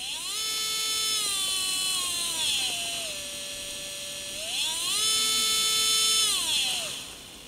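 ES121 motion-control electric screwdriver's small brushed motor and planetary gearbox whining, its pitch rising with speed, easing down to a slower steady run, then rising again and winding down to a stop near the end. The speed follows the rotation of the hand holding it.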